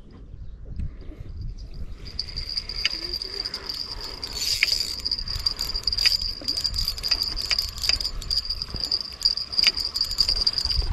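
Spinning reel being cranked to bring in a hooked small striped bass: a steady high whir with scattered light clicks, starting about two seconds in.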